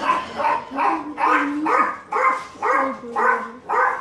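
A dying small dog crying out in a steady run of whining yelps, about two a second, each call bending in pitch.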